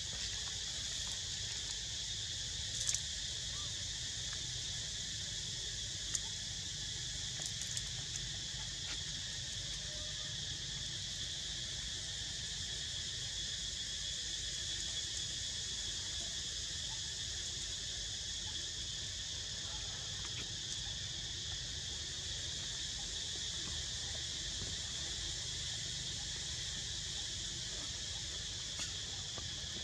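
Steady, unbroken high-pitched chorus of insects trilling, with a couple of faint clicks a few seconds in.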